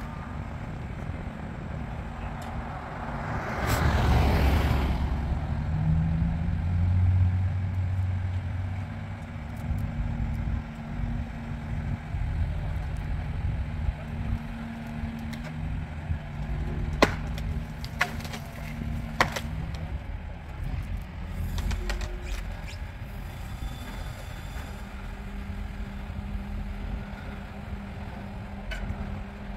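Diesel engine of a Magni rotating telehandler running the boom and Woodcracker tree shear, its hum swelling under hydraulic load for several seconds. A rushing noise rises about four seconds in, and two sharp cracks come near the middle.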